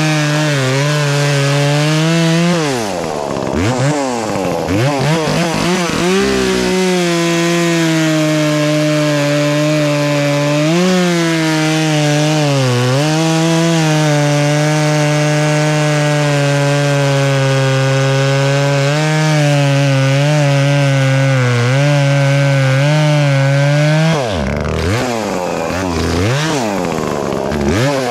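Chainsaw cutting through a maple log, running at a steady pitch under load in the cut. About three seconds in, and again near the end, the pitch falls away and swings up and down between cuts.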